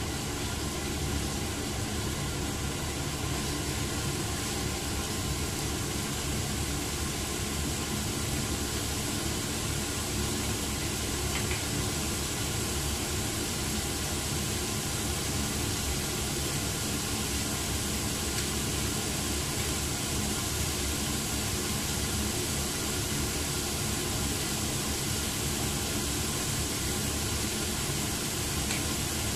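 Strips of meat frying in a nonstick wok: a steady sizzling hiss over a low, even hum.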